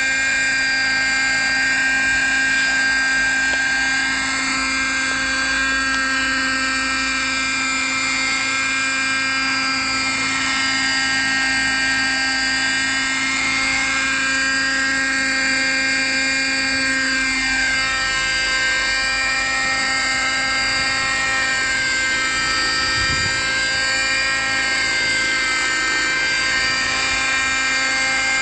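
Radio-controlled model helicopter flying low and hovering, a steady high-pitched whine of its rotor and drive. In the second half the pitch sweeps up and down several times as it manoeuvres.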